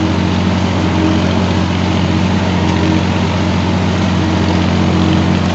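Valtra A950R tractor's diesel engine running at a steady speed, heard from the driver's seat while it pulls a disc harrow through the soil.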